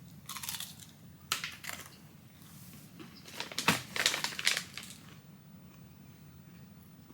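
Crunching and crinkling in three short bouts, the last and loudest starting about three seconds in and lasting over a second, from eating a piece of cookie butter holiday bark.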